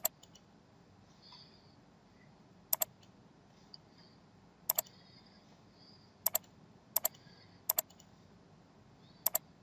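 Computer mouse clicks: about seven quick pairs of sharp clicks, one to two seconds apart, over faint room tone.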